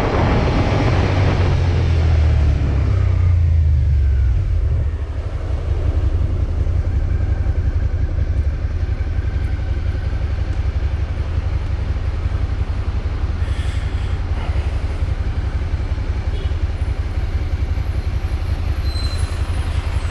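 Suzuki motorcycle riding with wind rush, then slowing to a stop about five seconds in. After that the engine idles steadily with a low, even pulse.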